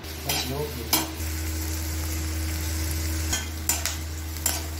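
Onions, cumin and green chillies sizzling in mustard oil in a metal kadhai, stirred with a perforated metal ladle that scrapes the pan a few times. A steady low hum runs underneath.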